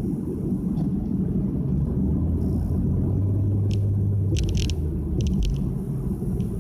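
Nissan Fuga 350GT's 3.5-litre V6 and one-off quad-outlet exhaust droning steadily while driving, heard from inside the cabin. A few short, high clicks come a little past the middle.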